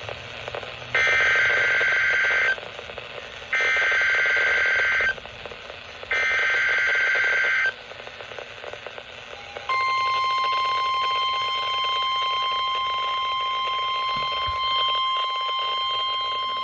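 A weather radio receiving the start of an emergency alert. First come three harsh, buzzy bursts of SAME digital header data, each about a second and a half long with short gaps between them. Then, about ten seconds in, the steady, piercing single-pitch NOAA Weather Radio warning alarm tone starts and holds.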